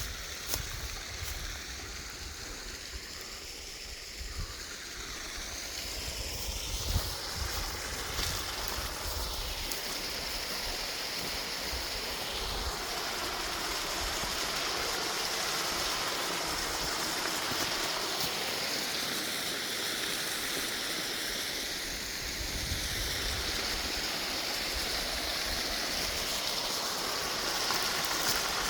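Steady rush of falling, splashing water, getting louder about six seconds in, with a few low knocks in the first seconds.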